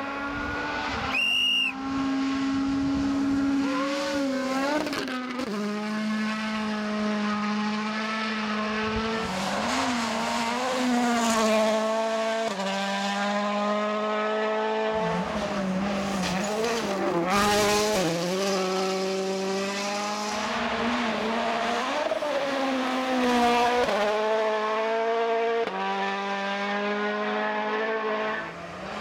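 A World Rally Car's turbocharged four-cylinder engine at full stage pace. The note climbs hard, then drops sharply at each gear change, over and over. A brief high whistle comes about a second and a half in.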